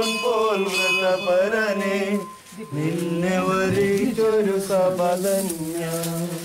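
A man's voice chanting an Orthodox liturgical hymn in long held notes that move slowly up and down, with a short break about two and a half seconds in.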